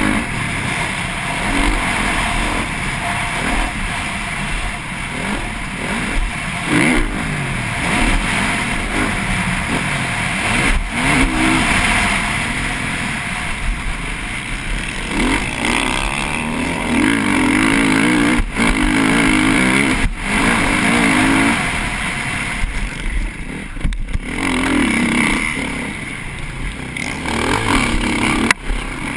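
Onboard sound of a TM MX450Fi motocross bike's single-cylinder four-stroke engine at race pace, revving up and falling back again and again. A few sharp knocks come through along the way.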